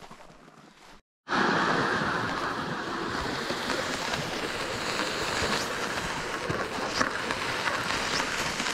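Steady rushing, scraping noise of a loaded sled being dragged along a snowy track, with a few sharp crunches of footsteps in snow. It starts abruptly about a second in.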